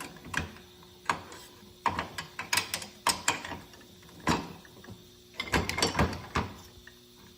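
Irregular metallic clicks and clanks from an old automatic-transmission clutch spring compressor being handled, with a quicker run of knocks a little after the middle.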